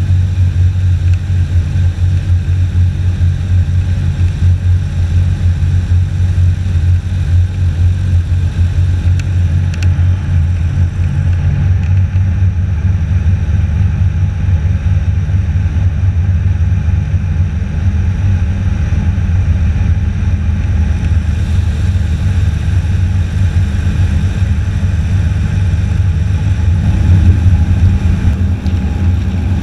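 Airboat's engine and propeller running steadily at speed, a loud low drone. It swells briefly near the end.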